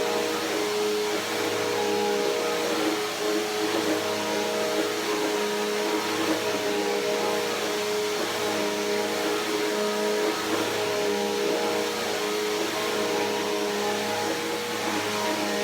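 Bissell PowerForce Helix Turbo upright vacuum cleaner running without a break: a steady motor hum over the rush of air.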